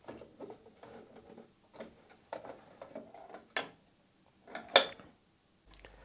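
Small plastic clicks and knocks from the 3D-printed top cover of an espresso machine being handled and pressed into place, with a sharper click about three and a half seconds in and the loudest one near five seconds.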